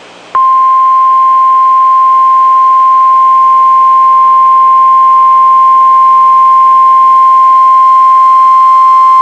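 NOAA Weather Radio 1050-hertz warning alarm tone: one loud, steady, unbroken tone that comes in abruptly about half a second in, after faint radio hiss. It signals that a warning broadcast follows, here a severe thunderstorm warning.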